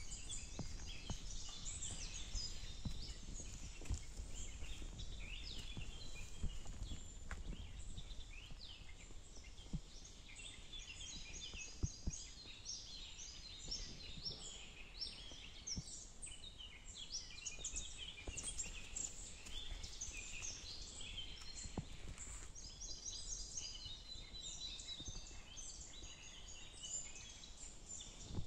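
Many small songbirds chirping and singing in a forest, calls overlapping throughout. Footsteps on a path give scattered soft knocks underneath, over a low rumble of outdoor ambience.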